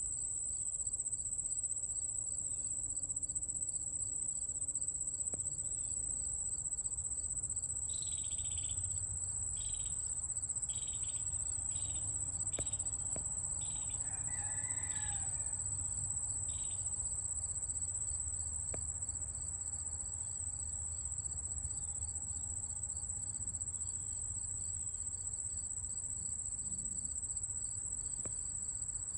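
Insects trilling outdoors: one continuous, even, high-pitched trill, with a second insect pulsing about three times a second beneath it. Partway through, a bird calls a run of about nine short notes roughly a second apart.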